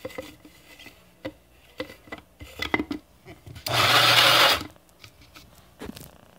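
Small electric blade grinder run in one short pulse of about a second, whirring as it grinds sesame seeds into tahini. Before it come a few light clicks and taps of the grinder being handled.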